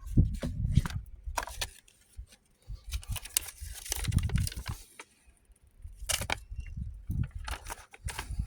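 Handling of a small metal wallet multi-tool: scattered clicks, clinks and rustling, busiest about three to four seconds in, with low bumps of handling.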